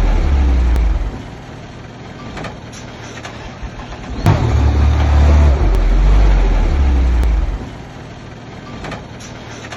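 Heavy diesel engine of earthmoving machinery working: a deep rumble that drops back about a second in, surges again with a sharp knock about four seconds in, and drops back once more near the end.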